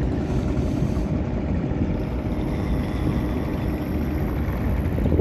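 Yamaha FZS V3 motorcycle riding: the engine runs steadily under a heavy, even rumble of wind on the microphone.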